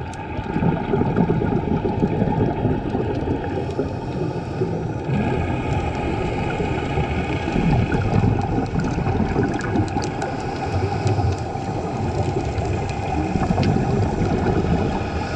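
Underwater sound heard through a camera's waterproof housing: a steady, muffled low rumble and wash, with faint steady higher tones and scattered small clicks.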